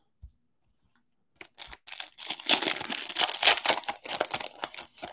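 The foil wrapper of a Donruss football trading-card pack being torn open and crinkled by hand. It starts about a second and a half in as a dense run of crackles.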